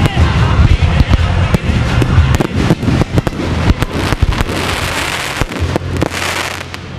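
Aerial fireworks shells bursting in quick succession, with a steady music track underneath. A dense hiss builds from about four and a half seconds and stops just before the end.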